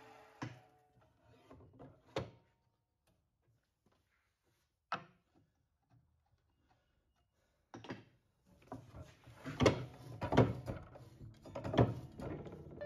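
Wooden board being slid and knocked against a mitre saw's fence and table: a few single knocks early on, then a busy run of sharp knocks and scrapes from about eight seconds in.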